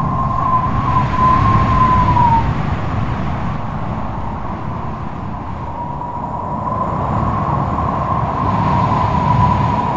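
Strong wind blowing in gusts, a deep rumble with a thin wavering whistle that fades out after about two seconds and returns about halfway through.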